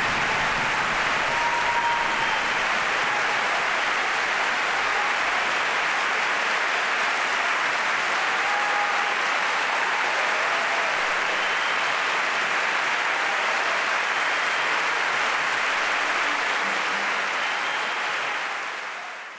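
An opera house audience applauding steadily after an aria, with a few faint shouts in the clapping. The applause fades out near the end.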